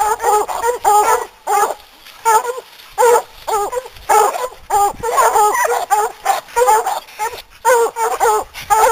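Several bear-hunting dogs barking at a black bear they have treed, with short, rapid barks two or three a second that overlap one another.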